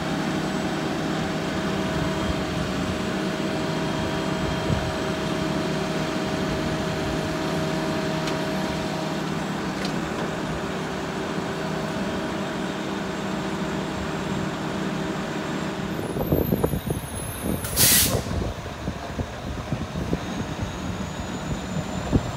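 A front-loading garbage truck's diesel engine runs steadily with a held tone on top while its front arms are worked. Later come irregular clunks and one short, sharp air-brake hiss.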